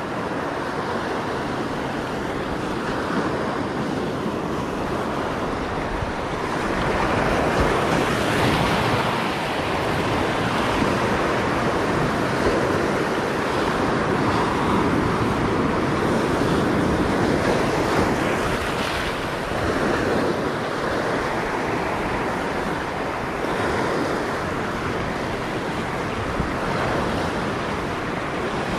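Sea surf washing and breaking over shore rocks, swelling and easing with each wave, with wind buffeting the microphone.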